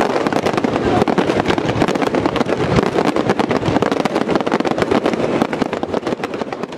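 Fireworks display finale barrage: many aerial shells and ground fountains firing at once, so their bangs and crackles come in rapid, overlapping succession and run together into one continuous loud volley.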